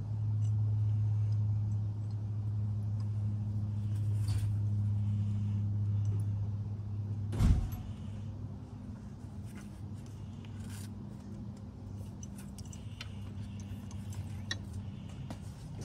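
A steady low machine hum with a few small metallic clicks of parts being handled on the tractor's pedal linkage. About halfway through comes one sharp clunk, after which the hum falls quieter.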